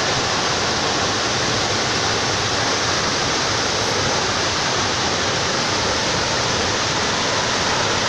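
Steady rushing roar of a 70-metre waterfall, an even wash of falling water.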